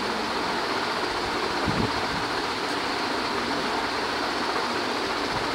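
Steady, even hiss of constant background noise, with no distinct events.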